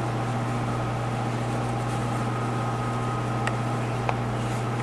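A steady low hum with a faint high steady tone over it, and two small clicks near the end.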